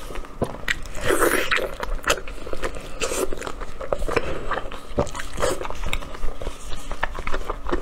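Close-miked wet eating sounds of braised pork belly: sticky chewing, smacking and slurping with many sharp clicks, and louder squelching bursts as gloved hands tear the soft, fatty pork apart.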